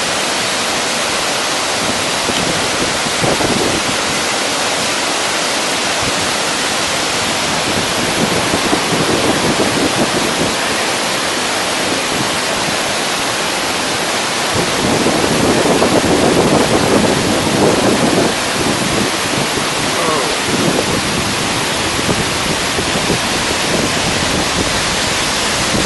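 Waterfall rushing steadily, a dense unbroken roar of falling water. The roar swells louder for a few seconds twice, about a third of the way in and again past the middle.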